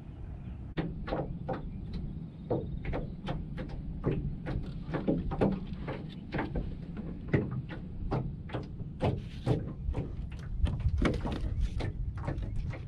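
Small waves slapping irregularly against the hull of an aluminum jon boat, about two to three sharp knocks a second, over a low rumble.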